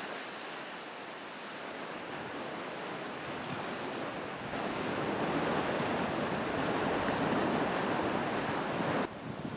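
Steady rushing of wind and water during kite hydrofoil riding, with no distinct events. It gets louder and brighter at an abrupt change about halfway through, then drops suddenly near the end.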